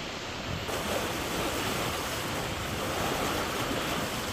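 Steady rushing noise of flowing floodwater, with wind on the microphone. About a second in, the noise turns brighter and a little louder.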